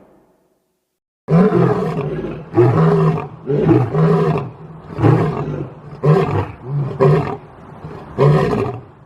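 Big cat roaring in a bout of about nine calls, beginning about a second in: one long opening roar followed by shorter, repeated grunting roars.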